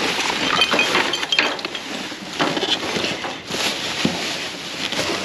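Plastic sheeting and cardboard boxes rustling and crackling as a gloved hand rummages through trash in a dumpster, with many small sharp crackles throughout.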